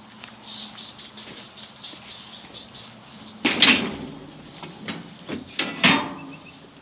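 Metal gates and panels of a sheep handling chute rattling and clanging as they are moved, with two loud clatters about three and a half and six seconds in, the second ringing briefly.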